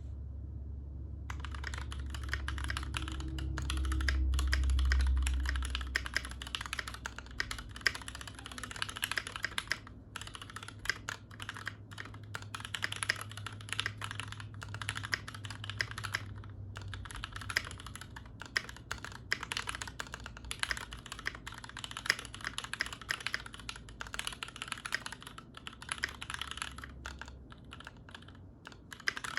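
Typing on an IDABAO ID80 mechanical keyboard with Gateron Milky Yellow linear switches, lubed with Super Lube oil, and Akko Macaw keycaps: a fast, continuous run of keystrokes with brief pauses, starting about a second in. A low rumble underneath swells a few seconds in and then fades away.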